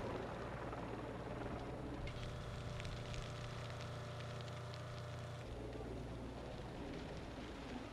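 Bushfire burning with scattered sharp crackles over a steady low engine drone. The sound changes abruptly about two seconds in, when a steadier engine tone joins, and again about five and a half seconds in.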